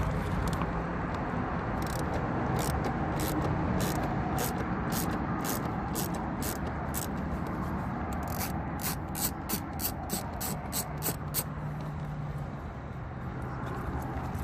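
A run of sharp clicks from a hand tool backing out the bottom screws of a Ford F150 door panel. The clicks come about two or three a second around the middle, over a steady background of vehicle noise.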